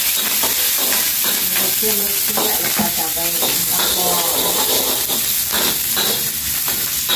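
Sliced onions and dried anchovies (ikan bilis) sizzling steadily in hot oil in a wok, stirred and turned with a metal spatula against the pan.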